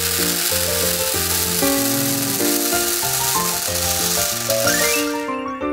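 Hundreds of small coloured beads pouring out of a mug into a plastic tray, making a dense, continuous patter that stops about five seconds in. Background music with a piano-like melody plays throughout.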